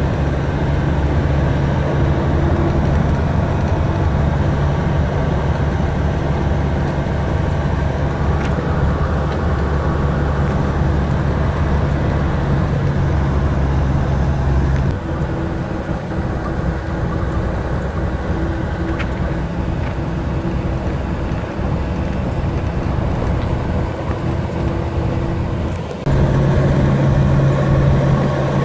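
Western Star 4800 truck's diesel engine and road noise heard inside the cab while cruising at about 1500 rpm: a steady low drone. It drops a little in level about halfway through and comes back louder near the end.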